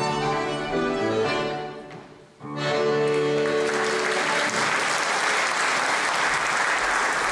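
Scottish dance band of fiddle, accordion and piano playing the close of a reel. The tune breaks off about two seconds in and a final held chord follows. Audience applause builds from about three and a half seconds in and carries on.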